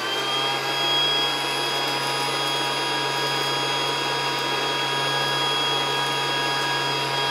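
A battery-powered Casdon toy Dyson DC14 vacuum cleaner running in suction mode, with the dusting tool on its hose picking up bits of hole-punch paper. Its small motor gives a steady, high, even whine over a low hum.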